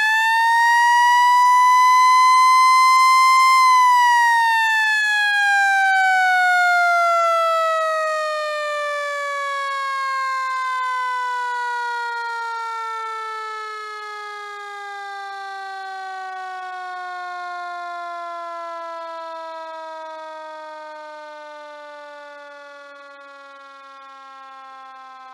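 Fire truck's mechanical siren winding up to a high wail in the first few seconds, holding briefly, then winding down in one long falling tone that fades as the rotor slows.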